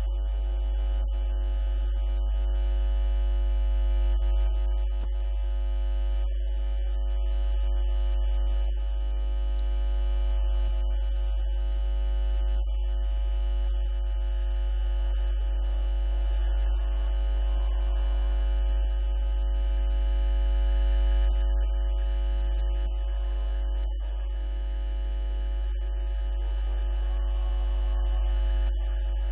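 Loud, steady low electrical hum, with a buzz of several steady higher tones above it that does not change.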